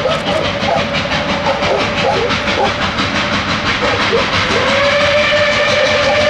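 Reading & Northern 2102, an ex-Reading T-1 4-8-4 steam locomotive, approaching with its exhaust chuffing rapidly, and its multi-chime steam whistle sounding, faltering early on and then held in a long blast from about four and a half seconds in.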